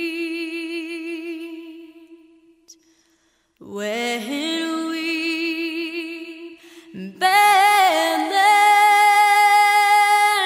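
Slow background music of long held notes with vibrato. It fades out to silence about three seconds in, starts again soon after, and swells louder on higher notes about seven seconds in.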